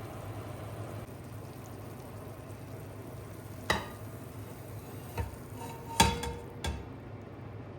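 Kitchen sounds: a steady hiss with four sharp clinks and knocks of utensils or dishware, the loudest about six seconds in, one of them followed by a short ringing tone.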